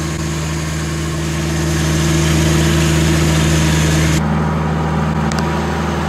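Band sawmill sawing a poplar log: a steady machine hum under the loud hiss of the blade running through the wood. About four seconds in, the sawing hiss cuts off sharply, leaving the hum.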